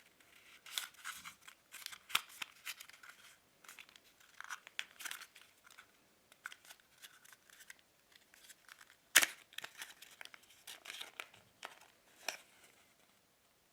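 Packaging being handled as a small earphone box is opened and its contents taken out: irregular rustling, crinkling and small clicks, with one sharper click about nine seconds in.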